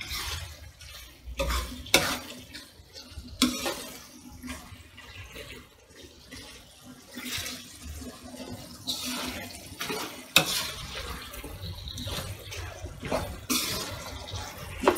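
Black spatula stirring chunks of liver through the watery juices they have released in a hot frying pan: wet, sloshing stirring with scrapes and knocks against the pan every second or two.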